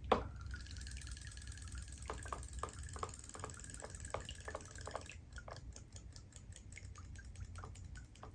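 Robo Fish toys swimming in a tub of water: a sharp click at the start, then a fast mechanical whirr with regular clicking from their tail motors. About five seconds in the whirr stops and a steady ticking, about three to four a second, carries on.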